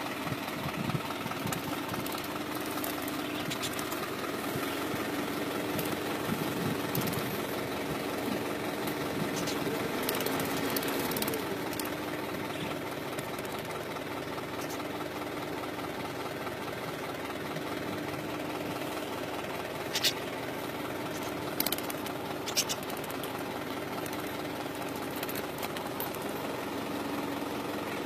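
Isuzu NPS truck's diesel engine idling steadily, heard from inside the cab, with a few short sharp sounds about two thirds of the way through.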